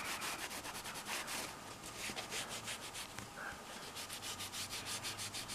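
A cloth rubbed back and forth over a phone's glass screen and edges, wiping off excess screen glue: faint, quick, repeated swishing strokes.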